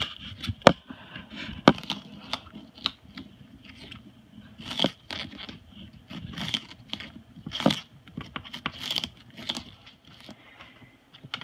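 Moluccan cockatoo shredding a sugarcane stalk with its beak: irregular cracks, crunches and tearing of the fibrous cane, sometimes in quick clusters of several snaps.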